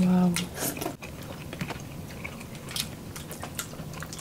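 People chewing seafood close to the microphone: wet chewing and lip smacks with scattered small clicks, after a short hummed sound at the very start.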